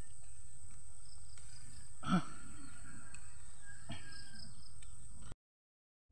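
Rustling and handling noise as a handheld phone is pushed through leafy plants, with a short pitched cry about two seconds in and a fainter one near four seconds. The sound cuts out completely near the end.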